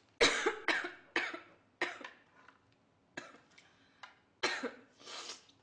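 A woman coughing in a fit of short, sharp coughs, four in quick succession in the first two seconds, then a few more after a pause.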